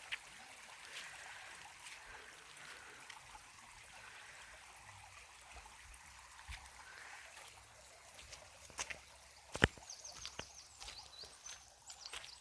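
A small stream trickling steadily. A few sharp clicks come about two-thirds of the way in, one of them loud, followed by a brief run of high chirps.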